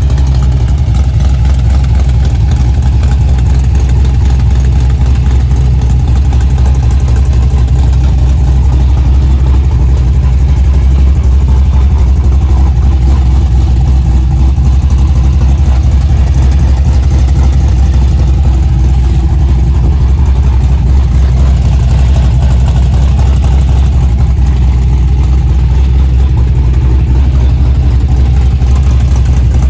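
V8 with a Tick Performance Stage 2 SNS camshaft idling steadily through a Borla XS muffler.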